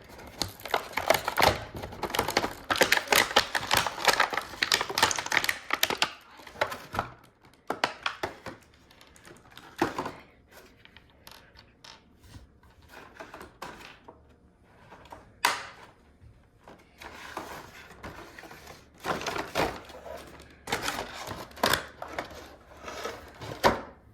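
Small plastic toys and their packaging being handled: dense clicking and rustling for the first several seconds, then scattered single clicks, with another busy burst of handling near the end.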